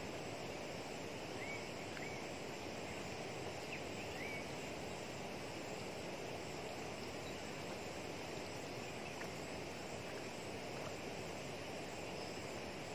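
Steady outdoor wind noise with a few short bird chirps, mostly between about one and four seconds in.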